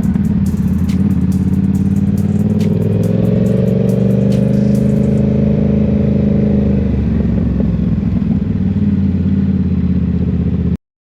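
A 2023 Yamaha R7's parallel-twin engine running through an M4 aftermarket exhaust on the move, a low growl. Its pitch climbs a little a couple of seconds in, holds, and eases back, and the sound cuts off suddenly near the end.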